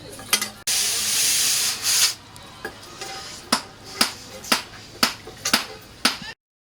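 A loud hiss lasting about a second and a half, then six even hammer blows on steel, about two a second; the sound cuts off abruptly near the end.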